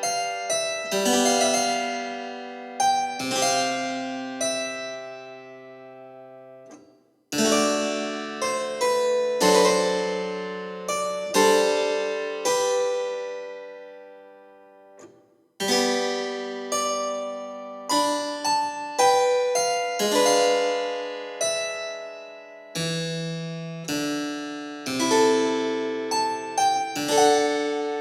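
Solo keyboard music: notes and chords struck and left to ring out and fade. Twice, about seven and fifteen seconds in, the sound dies away almost to silence before the playing starts again.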